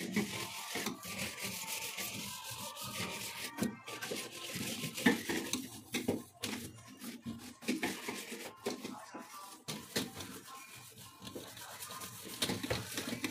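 Hand scrubbing the soapy plastic inside of a refrigerator with a cloth, a steady wet rubbing broken by many small clicks and knocks as the hand works along the walls and shelf.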